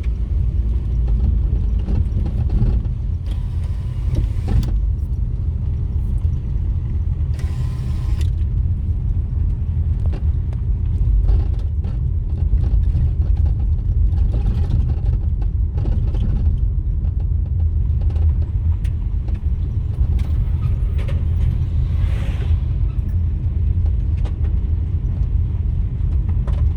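Steady low rumble of a vehicle driving along a road, engine and road noise. A few brief hissing swells rise over it, one near the start, one about eight seconds in and one near the end.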